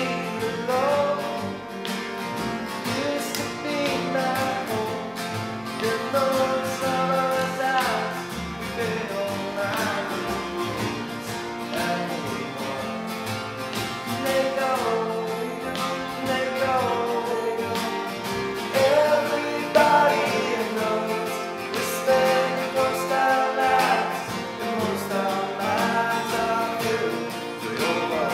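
Two acoustic guitars strummed and picked together, with a man singing sustained, drawn-out vocal lines over them.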